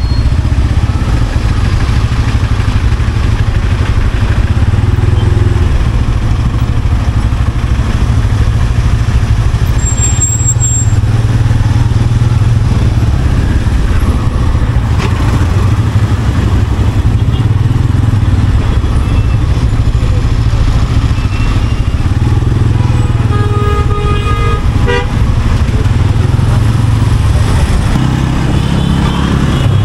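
Road traffic held up in a jam, engines running steadily, with a vehicle horn honking for a second or two about three quarters of the way through.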